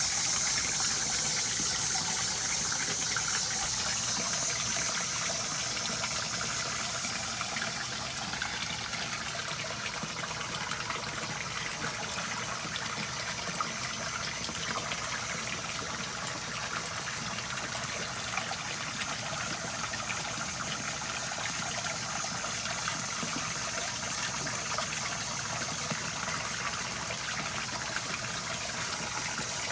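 Water splashing steadily into a fish pond, a constant rushing hiss, slightly louder over the first few seconds.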